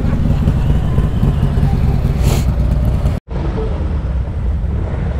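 Harley-Davidson V-twin motorcycle engines rumbling at low speed, first the rider's own Road Glide idling, then bikes rolling past. The sound cuts out abruptly a little over three seconds in and comes back at once.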